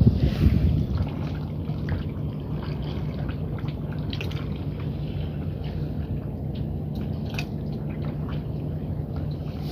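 Water lapping and dripping against the concrete pier and its pilings, small faint ticks over a steady low rumble and hum.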